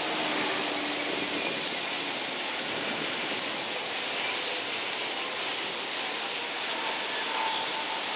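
Steady wash of distant engine noise, with faint scattered clicks and rustles of gloved hands digging through wood-chip mulch and stones.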